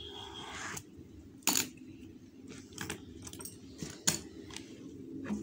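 A few sharp clicks and taps of a plastic ballpoint pen against a notebook and table, the loudest about a second and a half in and another about four seconds in, as the pen is handled and set down.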